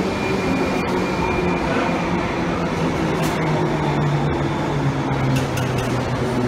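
London Underground 1972 Stock tube train running into the platform and slowing, with a steady rumble of wheels on rail. Its motor whine falls in pitch as it brakes.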